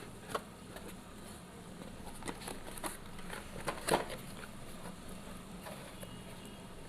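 Faint scattered clicks and rustles of packaging being handled while a toy RC car's remote controller is unpacked, with a few sharper clicks around the middle.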